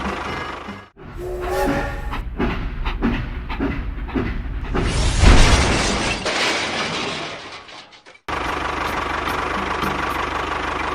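Small electric motors of DIY model construction vehicles running in short clips cut together, with abrupt breaks about one second and eight seconds in and a loud noisy rush near the middle.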